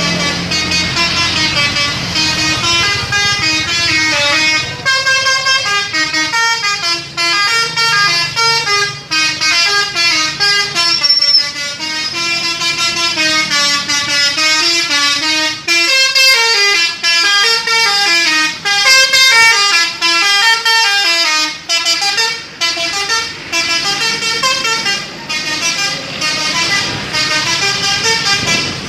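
Indonesian bus 'telolet' horns, multi-note air horns, playing quick tunes of short notes stepping up and down in pitch, several horns overlapping and crossing each other.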